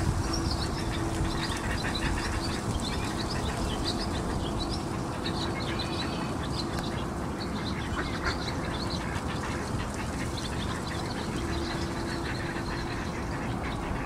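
Birds calling outdoors: many short calls scattered throughout, over a steady low hum and rumble of distant traffic.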